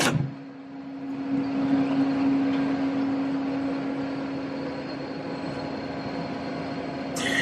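Steady mechanical hum with a steady low tone running through it, the sound of a fan or motor. It opens with a brief clatter as the metal cover of the electrical cabinet is swung open.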